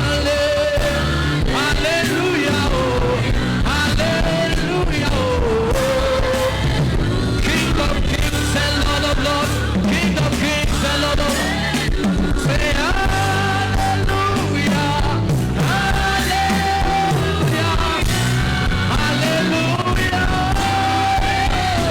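Live church worship music from a band: steady drums and bass under a wavering, sustained lead melody.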